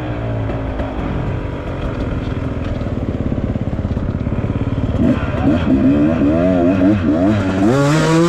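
Off-road motorcycle engine running, then from about five seconds in revving up and down repeatedly as the throttle is worked.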